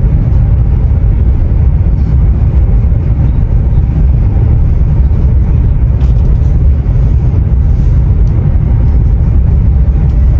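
Steady low rumble inside the passenger cabin of a high-speed bullet train cruising at close to 350 km/h.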